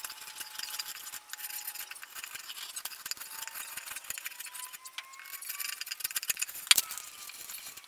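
A knife whittling the edge of a pallet-wood paddle blade, thinning it down: a steady run of small scraping, crackling cuts, with one sharper snap near the end.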